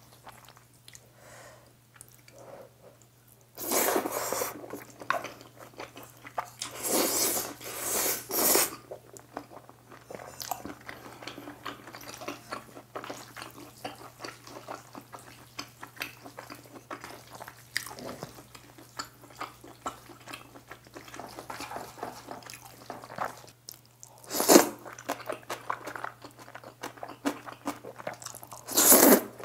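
Close-miked eating of Jjapaghetti black-bean noodles: several loud slurps of noodles, about four seconds in, twice around seven to eight seconds, near twenty-five seconds and again near the end, with wet chewing and small mouth clicks between them.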